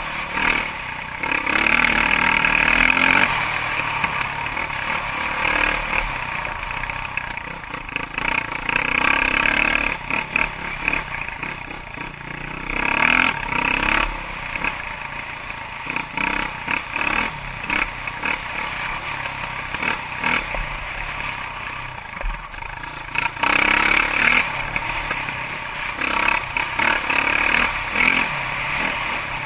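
KTM RFS 540 EXC dirt bike's single-cylinder four-stroke engine running while riding, rising and falling with the throttle, with several louder surges.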